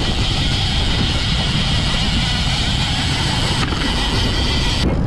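Steady rush of wind and water with a low rumble from the boat as it runs through rough, choppy sea. The hiss drops away shortly before the end.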